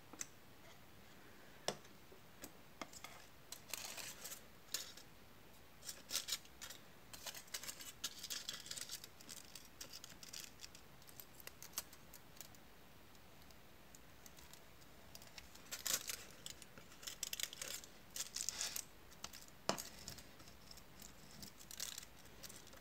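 Close-up handling of a tiny cardboard pizza box and a scrap of aluminium foil: scattered bursts of foil crinkling as it is pressed into the box, with a few sharp clicks and taps from the cardboard.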